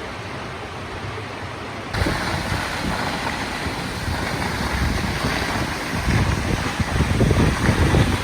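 Steady rushing roar of the Svartifoss waterfall, with wind buffeting the microphone in low rumbling gusts. The sound jumps louder about two seconds in, and the gusts grow stronger in the second half.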